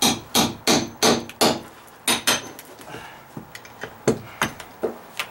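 Hammer blows on a steel pry bar wedged into dry-rotted OSB deck sheathing to pry it loose. A quick run of five sharp strikes, about three a second, each with a faint metallic ring, then a few scattered lighter taps.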